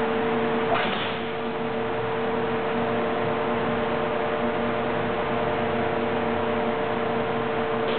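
Industrial thermoforming machine running: a steady mechanical hum with a hissing noise under it, and a brief sharp rattle about a second in.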